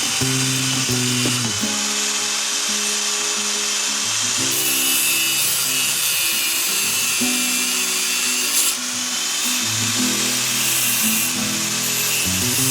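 Background music with a steady power-tool noise running underneath it.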